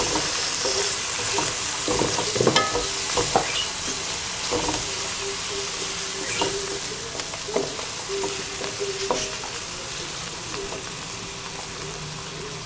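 Tomato and spice masala sizzling in hot oil in a steel wok while a wooden spatula stirs and scrapes it around the pan, with sharper knocks of the spatula against the metal about two to three and a half seconds in. The sizzle eases a little toward the end.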